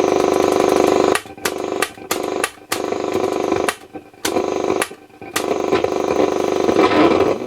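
Roberts R707 transistor radio's loudspeaker giving a loud, steady buzz with no station on medium wave. About a second in, the buzz breaks up into crackles and dropouts for a few seconds, then returns. Medium wave is dead, which points to a tuning module that has been tampered with or has failed.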